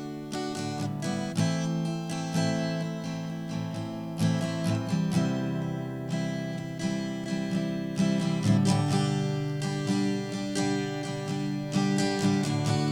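Acoustic guitar strumming chords as the instrumental introduction to a worship song.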